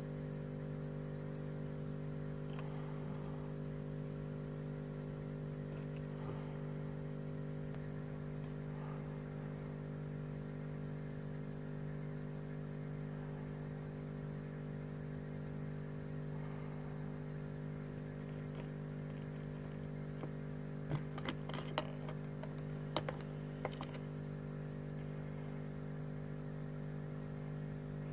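A steady machine hum with several fixed pitches, unchanged throughout. About three-quarters of the way in comes a brief cluster of sharp clicks and taps.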